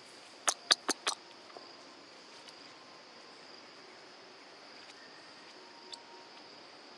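Steady high drone of forest insects, with four quick sharp clicks about half a second to a second in.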